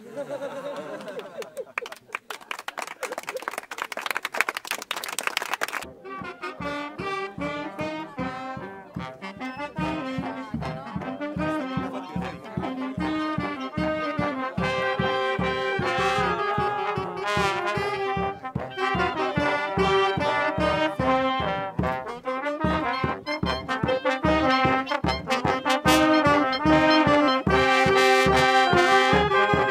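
Street brass band of trumpets, trombones and saxophone playing a tune over a steady bass-drum beat, which starts about six seconds in. Before it, a dense patter of clapping.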